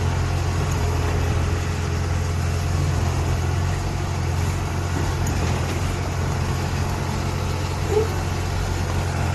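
Kubota 988Q combine harvester's diesel engine running at a steady drone, with one short higher squeak about eight seconds in.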